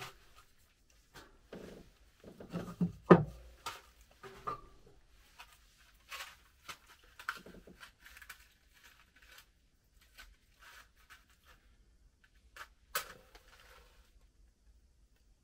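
Pieces of wood knocked and set down on a plank floor, the loudest knock about three seconds in, followed by light scraping and tearing of tinder by hand. About 13 seconds in, a match is struck and flares.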